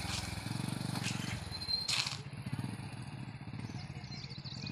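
Small commuter motorcycle engine running as the bike rides away, its pulsing beat fading with distance. There is a brief sharp clatter about two seconds in.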